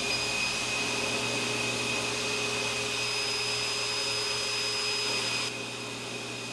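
Bench buffing machine motor running at speed with a steady whine while a briar pipe bowl is buffed on its spinning cloth wheel. The sound drops a little about five and a half seconds in.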